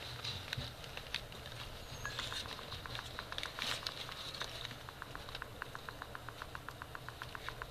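Four-week-old Tibetan spaniel puppies making small clicking and pattering sounds. About halfway through, the sounds settle into a regular run of quick clicks, about eight a second.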